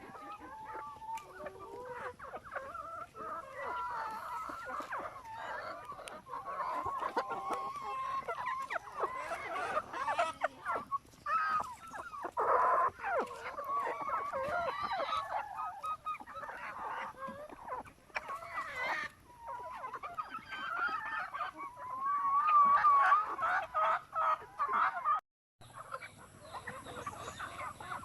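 A flock of free-range chickens clucking and calling, many birds overlapping. The sound breaks off for a moment near the end, then the clucking resumes.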